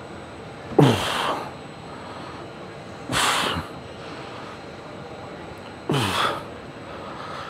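A man's forceful exhales, each a short grunt that falls in pitch, three of them about two and a half seconds apart: effort breaths, one per rep, during a hard high-rep set of quad training.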